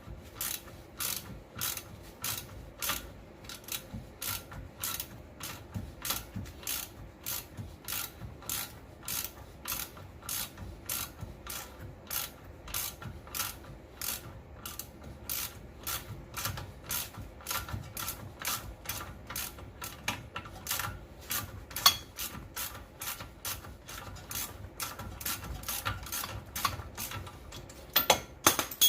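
Hand ratchet clicking steadily, about two to three clicks a second, as it backs the nut off the upper ball joint stud of a Dodge Ram 1500's front suspension. The stud is held from spinning with a pry bar on the upper control arm. One sharper, louder knock comes about two-thirds of the way through.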